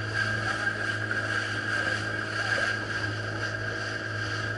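Small open motorboat running steadily at speed: a constant engine drone with water rushing and splashing along the hull.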